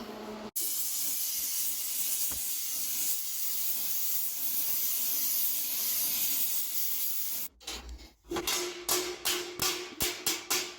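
Torch flame hissing steadily as it heats the steel helmet, cutting off abruptly after about seven seconds. Quick, evenly spaced hammer blows on the hot steel start near the end, about three a second, with a slight ring.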